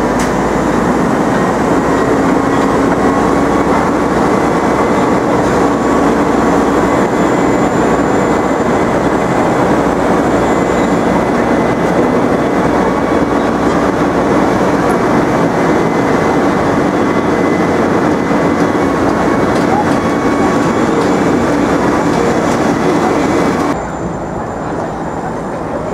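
Loud, steady mechanical noise with a low hum, like heavy machinery or a train running, dropping suddenly to a lower level near the end.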